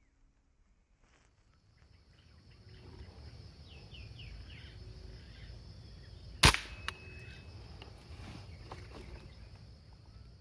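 A single sharp shot from a hunting air rifle about six and a half seconds in, followed shortly by a fainter click. Under it runs a steady high hiss, with a few short falling chirps a little before the shot.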